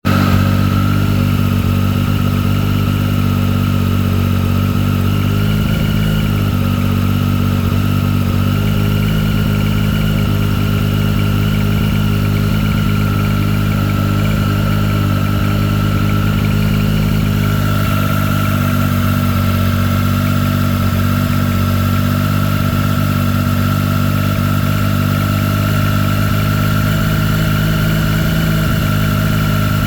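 2023 Triumph Street Triple 765 RS inline-three engine idling steadily from cold. The owner suspects the noise it makes may be piston slap, which he hears only when the engine is cold. Its note shifts slightly about eighteen seconds in.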